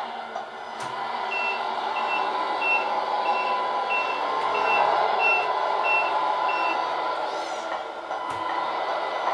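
Electronic reversing beeper from the RC MAN tipper truck's sound unit, nine short high beeps about one and a half a second while the model backs up, over the unit's steady simulated diesel engine running sound. A brief hiss-like sweep follows near the end of the beeping.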